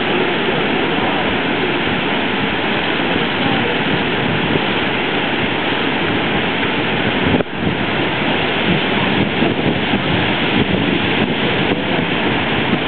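Brooks Falls rushing steadily: the river pouring over the falls. About seven and a half seconds in there is a single sharp click with a brief dip in the sound.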